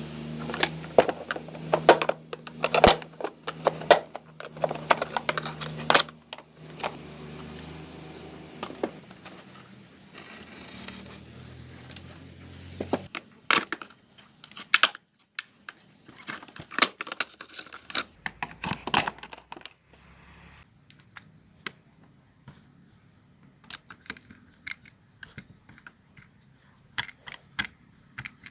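Metal bicycle parts and hand tools clinking and clattering, with many sharp metallic clicks and knocks. A low steady hum runs under them for about the first half.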